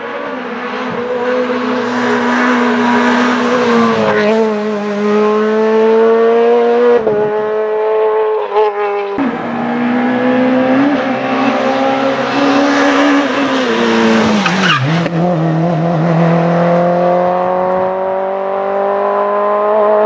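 Rally car engine at high revs, climbing in pitch as it accelerates and dropping sharply at gear changes. The note breaks off abruptly a couple of times, then rises steadily toward the end as the car closes in.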